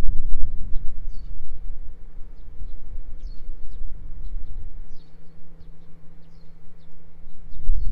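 Small birds chirping repeatedly in short high notes, over a steady low rumble.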